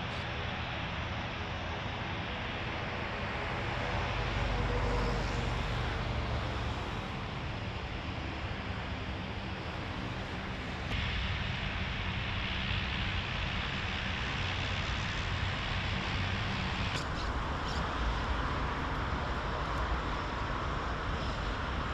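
Airplane engines running as the plane taxis on the airfield, a steady drone that swells for a few seconds and changes abruptly twice, at about eleven and seventeen seconds in.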